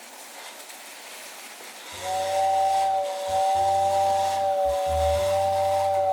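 A toy electric train's whistle blows a steady two-note chord. It starts about two seconds in and is held for about four seconds over a low hum. Before the whistle there is only the faint running noise of the train.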